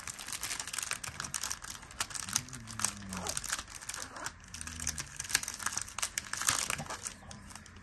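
Thin clear plastic packaging crinkling and crackling as it is handled and opened to take out cling rubber stamps: a continuous run of small sharp crackles.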